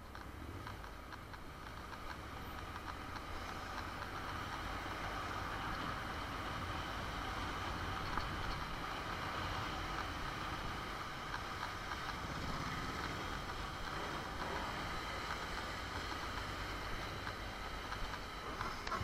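Honda NC750 motorcycle on the move: its parallel-twin engine running under a steady rush of road and air noise, growing louder over the first few seconds and then holding steady.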